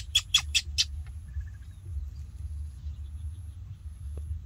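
A small animal gives a rapid run of high-pitched chirps, about five a second, which stops about a second in. A steady low rumble runs underneath, with a few faint ticks afterwards.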